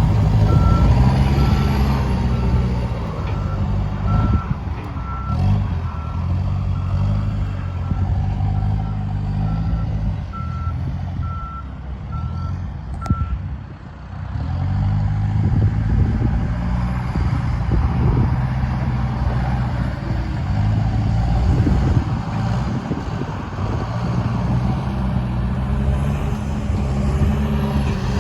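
The diesel engine of a Case 580 Super N backhoe loader runs, rising and falling in pitch, while its reverse alarm beeps steadily. The beeping stops about halfway through, and the engine keeps running.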